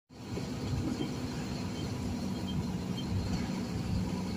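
Truck engine running steadily while driving, a low even drone with road noise, heard from inside the cab.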